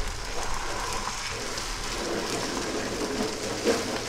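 Steady frying sizzle from shredded parotta in a hot nonstick pan as raw eggs are poured in and stirred with a wooden spatula.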